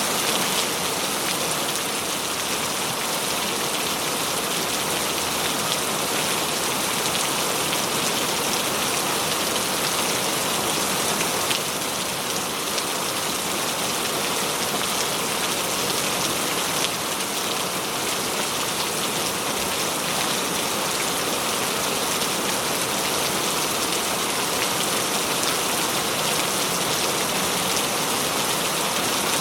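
Steady heavy rain: a dense, even hiss of falling drops, with faint individual drop ticks and no break in intensity.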